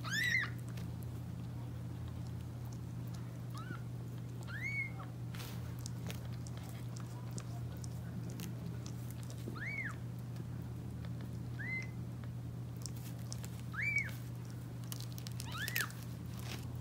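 Newborn kitten, still wet from birth, mewing in short, high squeaks that rise and fall, about seven in all, spaced a second or a few seconds apart. A steady low hum runs underneath.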